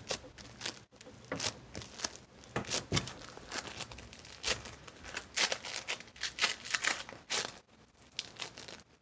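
Blue floam, slime packed with tiny foam beads, squeezed and kneaded by hand, giving irregular crackling and crinkling as the beads press and shift.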